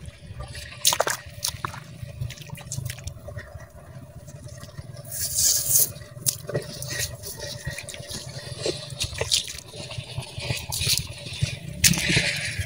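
Shallow standing water in a flooded rice paddy sloshing and dripping, with scattered short splashes and rustles as the rice plants are brushed and handled.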